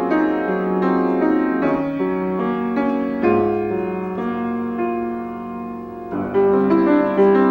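Solo grand piano playing a classical piece, with sustained notes and chords. It eases into a quieter stretch and then comes back in with louder chords about six seconds in.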